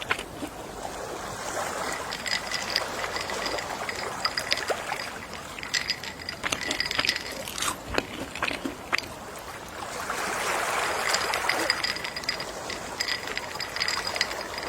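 Gentle sea waves washing ashore, the wash swelling twice, a few seconds in and again about two thirds of the way through. A faint, high, steady-pitched ticking runs over it.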